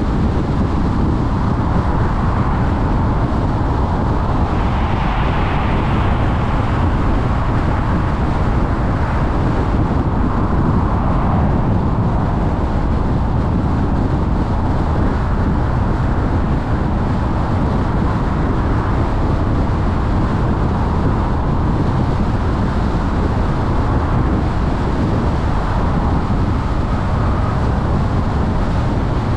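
Steady road noise of a car driving at highway speed: tyre hiss, engine and wind rumble, with a briefly brighter hiss about five seconds in.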